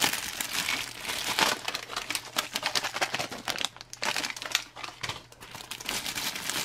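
Plastic and foil ration packets crinkling as they are handled, a dense run of sharp, irregular crackles.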